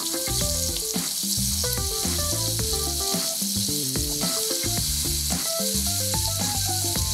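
Diced butternut squash, celery, onion and fennel sizzling in hot oil as they are dropped by hand into an enamelled cast-iron Dutch oven: a steady high hiss of frying. Background music plays underneath.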